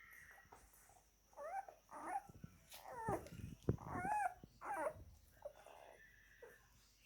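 Nine-day-old shepherd puppies whining and squeaking while nursing. A run of short, high, wavering calls comes from about one and a half to five seconds in.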